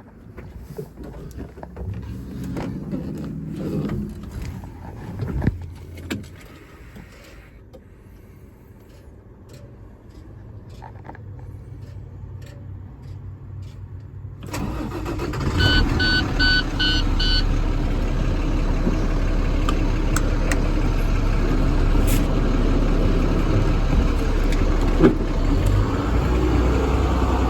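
Knocks and clicks of someone climbing into the truck cab, then the 2009 International DuraStar 4300's diesel engine starts about halfway through and settles into a steady idle. Five short beeps from a dash warning buzzer sound just after it starts.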